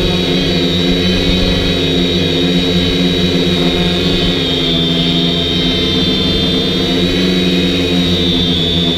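DJI Flamewheel F450 quadcopter's four brushless motors and propellers running steadily in flight, recorded by the camera on board: a constant buzzing hum under a high, even whine.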